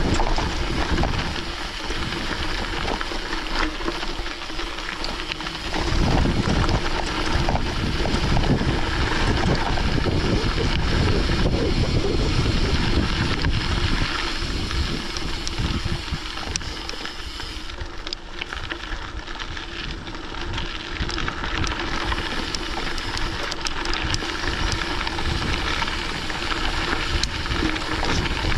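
Wind buffeting the microphone over the running noise of a mountain bike on a gravel forest road, with a low rumble that rises and falls. It eases off for a few seconds past the middle.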